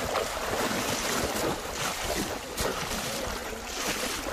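Shallow river water splashing and sloshing as a person wades and runs through it, slamming a bamboo plunge-basket fish trap down into the water, with a few sharper splashes.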